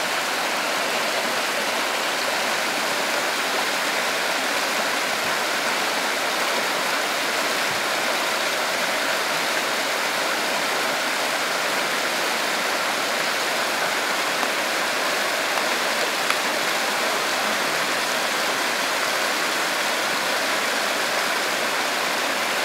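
Salmon stream rushing over rocks: a steady, loud rush of whitewater.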